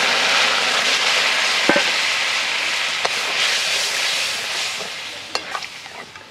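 Boiled moong dal poured into a hot kadai of oil, fried fish head and spices, sizzling loudly, while a metal spatula stirs and clicks against the pan a few times. The sizzle dies down over the last couple of seconds.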